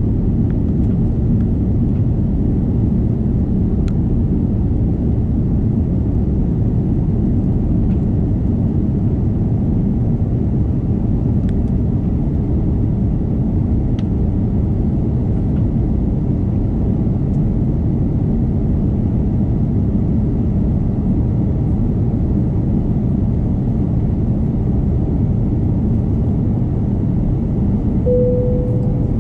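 Steady, loud low rumble of engine and airflow noise inside an Airbus A330 passenger cabin. A short single-tone chime sounds near the end.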